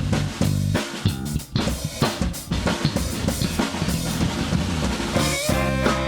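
Band playing live in an instrumental passage: a drum kit with kick and snare hits drives the beat over bass and guitar. A sustained, pitched lead line comes in about five seconds in.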